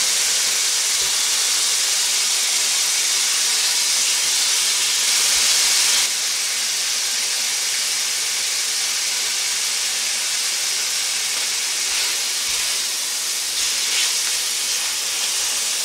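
Pork shoulder steaks searing in a hot, lightly oiled frying pan: a steady, loud sizzle.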